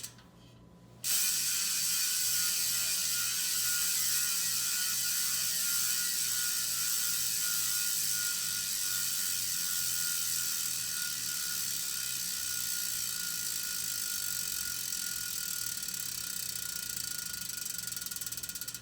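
Six-pawl freehub of a Boyd Cycling 85 rear road hub ratcheting in a spin test: a dense, rapid buzz of pawl clicks that starts about a second in and gradually winds down as the wheel coasts. The closely spaced clicks are the sign of the hub's fast engagement.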